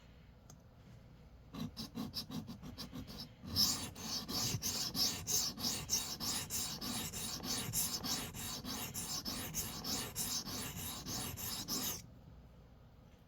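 Steel blade of a Civivi Vision FG knife scraping back and forth across a coarse 325-grit sharpening stone, grinding a dulled edge back to an apex. Short, separate strokes start about a second and a half in, turn into fast continuous strokes about two seconds later, and stop abruptly near the end.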